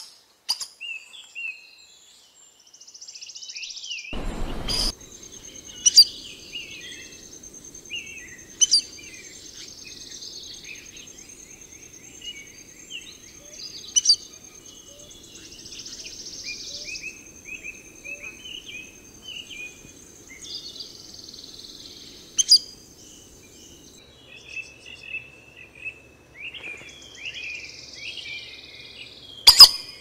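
Birds chirping and calling with many short, sliding notes, over a thin steady high tone and a soft buzzy hiss that comes and goes every few seconds. Sharp, loud clicks stand out several times, about six, nine, fourteen and twenty-two seconds in and in a quick cluster at the end, with a brief low rumble about four seconds in.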